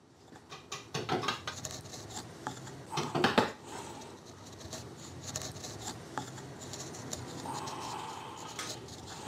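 Steel carving chisel pushed by hand, without a mallet, paring thin shavings from a wood relief: soft scraping with small clicks, and a louder run of cuts about three seconds in.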